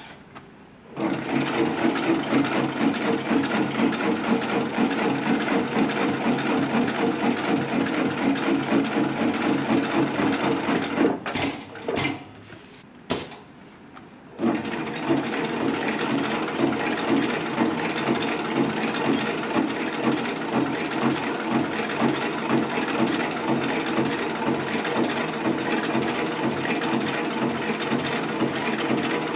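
Heavy-duty twin-needle lockstitch sewing machine (HIGHTEX 7204MD) running at speed with a fast, even stitching rhythm. It stops about eleven seconds in, gives a few clicks, and starts sewing again a few seconds later.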